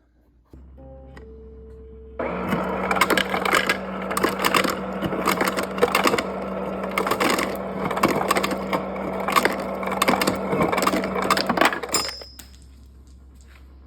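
KitchenAid refrigerator ice dispenser running on a replaced auger motor. A low motor hum is joined about two seconds in by ice cubes clattering and cracking out through the chute, which stops near the end. The ice delivery shows the new auger motor is working.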